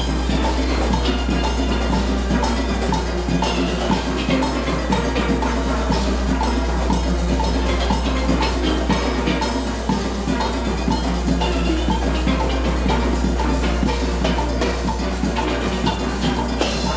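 Steel orchestra playing a soca tune on steel pans, with drums and percussion keeping a steady beat underneath.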